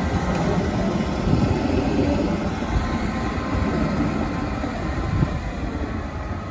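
Sightseeing trolley train running along the track, a steady rumble that eases slightly toward the end.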